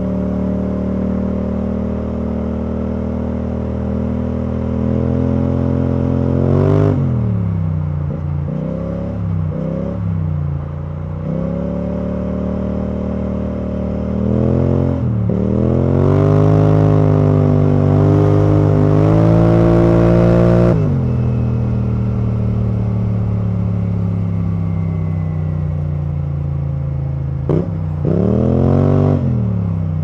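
BMW C650GT maxi-scooter's parallel-twin engine through an Akrapovic exhaust, heard from the rider's seat while riding. It runs at a steady cruise, with the revs dipping and picking up again a few times. In the middle it holds a longer pull at higher revs that cuts off sharply when the throttle closes, and near the end it gives another short rise and fall.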